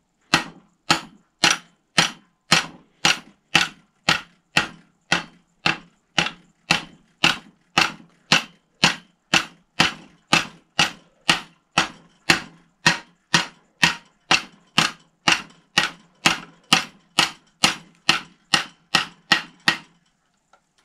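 A small steel riveting hammer striking the end of a copper tube clamped in a flaring bar, in an even series of about two blows a second that stops near the end. The blows are flattening the tube end outward to form a flat hammered flare (collet battu) for a nut fitting.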